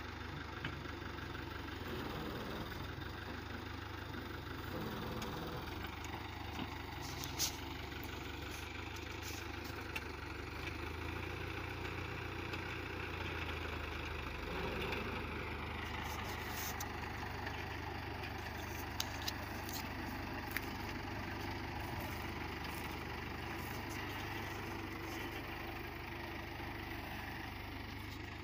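Tractor diesel engine running steadily under load as its rear-mounted backhoe bucket digs sand, with a few sharp clicks or knocks along the way.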